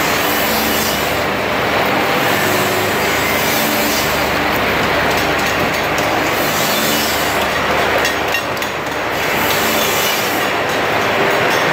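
Horizontal finger-joint line running: a steady mechanical noise from its chain conveyors and drive motors, with a low hum, dipping briefly about eight seconds in.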